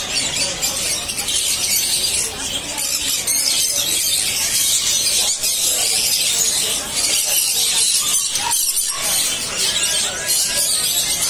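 A flock of caged small parrots, pineapple green-cheeked conures among them, keeping up a steady din of high-pitched chirps and squawks, with a murmur of voices behind.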